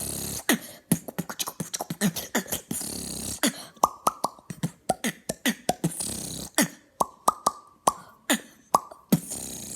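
Beatboxing: a fast, uneven rhythm of mouth pops and clicks, many of the pops dropping quickly in pitch, mixed with short hissing snare-like sounds.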